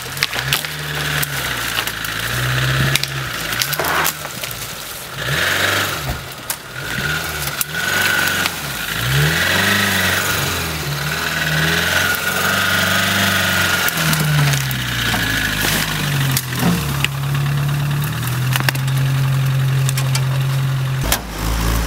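Suzuki Samurai's engine revving up and down over and over as the 4x4 crawls over logs and rough forest ground, then held at steadier, higher revs near the end. Sharp knocks and snaps are scattered through it.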